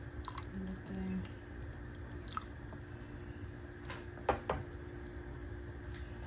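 Wooden spoon stirring thick plantain porridge in an aluminium pot: soft wet squishing, with a few sharp knocks of the spoon against the pot, the loudest two in quick succession about four seconds in. A steady low hum runs underneath.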